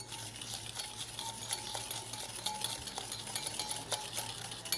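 Wire whisk beating egg yolks and sugar in a bowl: metal wires scraping and clicking quickly and unevenly against the bowl's sides.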